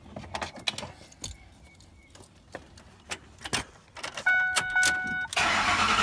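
Keys jangling and clicking as the ignition key goes in on a 2005 Ford F-150, then a steady dashboard warning chime for about a second, then the starter cranking the 5.4-litre V8 near the end.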